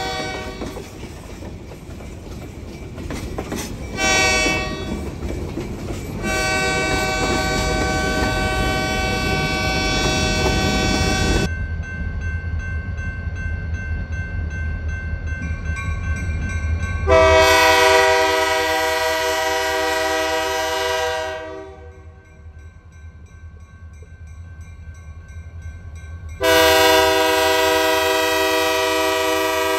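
Freight cars rumbling past while a locomotive air horn sounds a short blast and then a long one. After a cut, the approaching lead locomotive, a GP40-3 diesel, blows two long horn blasts over a low engine rumble, the sequence sounded for a road crossing.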